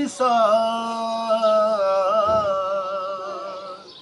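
A man singing an Urdu Muharram devotional song unaccompanied, holding one long wavering note that fades away near the end.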